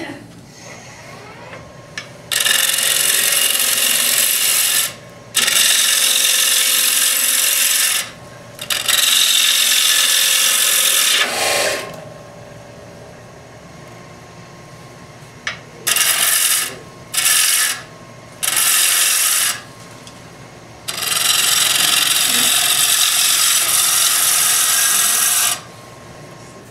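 Turning tool cutting into the face of a wood blank spinning on a lathe, in a series of separate passes: several long cuts, a run of short ones in the middle and a long one near the end. The lathe hums quietly between cuts.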